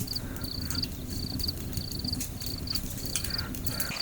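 An insect calling: a short, high chirp ending in a few quick pulses, repeated evenly about three times every two seconds over a steady low rumble.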